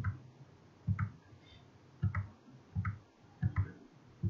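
Computer mouse button clicking about five times, roughly once a second, each click a quick press-and-release pair.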